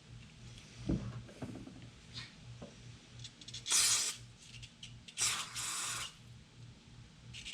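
Aerosol carburettor cleaner sprayed onto carburettor parts in short hissing bursts: one about halfway through and a longer double burst a little later, after a few light knocks of parts being handled.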